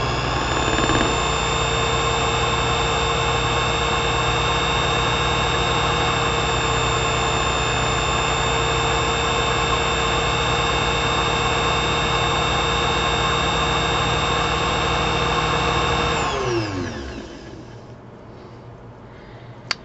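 Watchmaker's lathe motor coming up to speed at the start and running with a steady whine while a stone is held against the spinning screw head to grind it into a dome. About 16 seconds in the whine slides down in pitch as the lathe winds down to a stop, leaving a faint hum.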